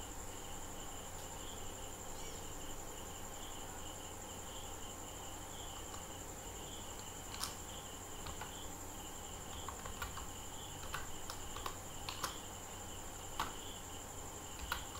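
Sparse computer keyboard keystrokes: a single click about halfway through, then half a dozen irregular clicks over the last few seconds as a short entry is typed. A faint, steady, high-pitched trill runs underneath.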